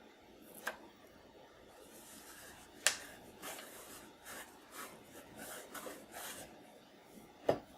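Quiet handling sounds of stickers being peeled and pressed onto a Commodore 64 keyboard. A run of soft rustles is broken by a few sharp clicks and taps, the loudest one near the end.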